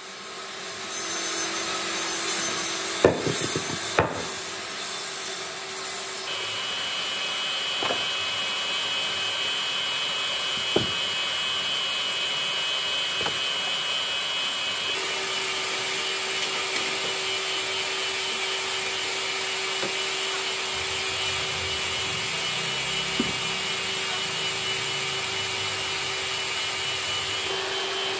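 Old wooden boards and a tree stump being handled and shifted: a few sharp wooden knocks, the loudest two about three and four seconds in, over a steady background noise with a faint hum.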